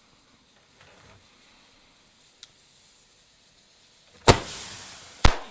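A firework going off. It is quiet at first, then a sharp loud bang comes about four seconds in, followed by a hissing spray that fades over about a second. A second sharp crack comes near the end.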